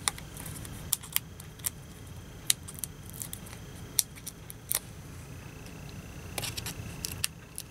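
Hands working with paper and foam adhesive dimensionals: scattered small, sharp clicks and ticks as backing paper is peeled off the dimensionals and a scalloped cardstock circle is pressed down and turned over.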